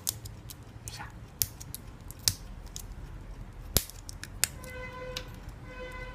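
Maxell AA batteries clicking against one another as they are handled in the hand: a few sharp clicks spread out a second or so apart.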